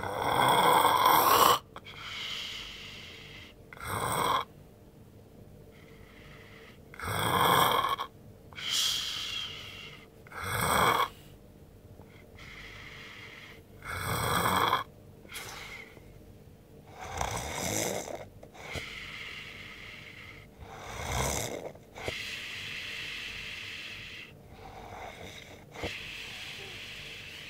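A man snoring in deep sleep: a loud, rasping snore every three to four seconds, dying down to quieter breathing for the last few seconds.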